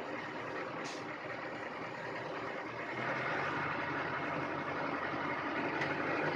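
Kobelco SK210 excavator's diesel engine running steadily, getting louder and deeper about three seconds in as the engine works harder.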